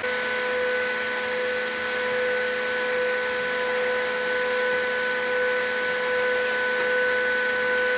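A home-built 3D printer standing by while it heats up to resume a print: its cooling fans run with a steady whirr and a constant whine.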